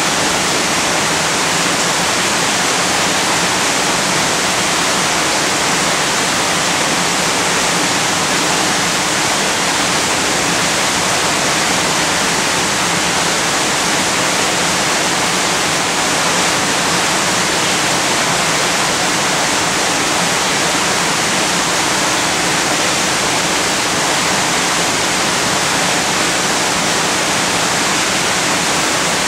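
Loud, steady rushing noise, even and unbroken throughout, like running water or a hiss.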